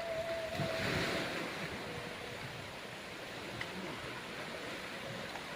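Seawater washing against the shore in a steady rush, with wind buffeting the microphone.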